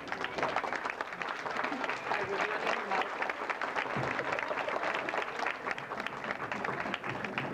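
Audience applauding, a dense, steady patter of hand claps that begins at once.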